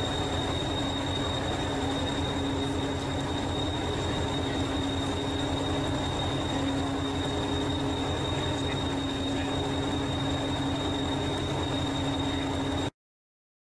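Diesel engine of Hastings diesel-electric multiple unit 1001 running steadily at a standstill: a pulsing low rumble with a steady hum and a thin high whine over it. The sound cuts off suddenly near the end.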